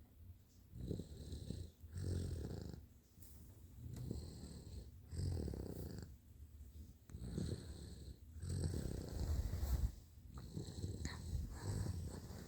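Rhythmic snoring, with about seven breaths each a second or two apart.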